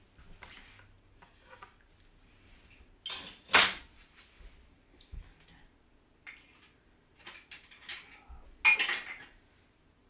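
Tableware handling: plates and utensils knocked and set down, with quieter rustling between and two loud sharp clatters, about three and a half and nine seconds in.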